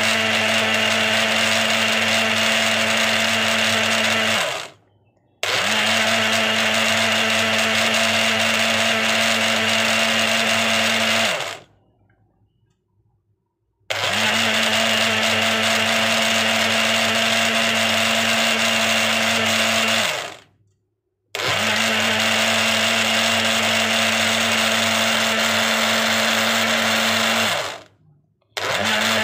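Electric kitchen blender running on chopped ingredients and water, with a steady motor hum at one pitch. It is switched off and on again four times, the motor winding down briefly at each stop before restarting, the longest pause about a third of the way in.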